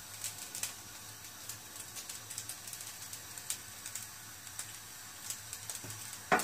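Fried rice cooking quietly in a nonstick wok on the heat: faint, irregular small crackles and pops over a low hiss, with one sharper click near the end.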